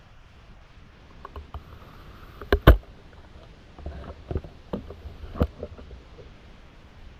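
Underwater knocks and clunks close to the camera as a diver moves among submerged branches, with a loud double knock a few seconds in and a cluster of smaller knocks after it, over low muffled rumbling.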